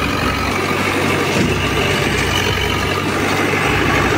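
Diesel engine of a Terex Vectra backhoe loader idling steadily.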